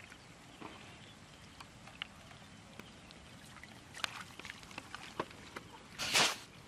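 Hands squelching and splashing through shallow muddy water, with scattered small wet clicks and drips, then one louder, short splash near the end.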